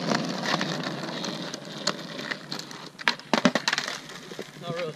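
Skateboard wheels rolling on rough asphalt, then several sharp clacks of the wooden deck striking the pavement about three seconds in as a nollie 360 flip is attempted and the rider comes off the board.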